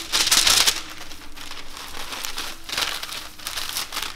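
Thin plastic bag crinkling and rustling as it is handled, loudest from about a quarter to three-quarters of a second in, with further rustles around three seconds in.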